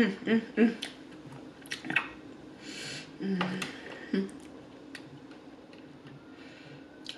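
Close-miked eating sounds: soft chewing and squishing, with three quick hummed "mm" sounds in the first second and two more about three and four seconds in.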